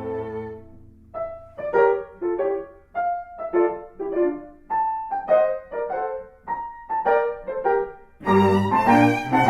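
Background music: a run of separate plucked or struck notes in a melody, joined by fuller bowed-string and piano notes about eight seconds in.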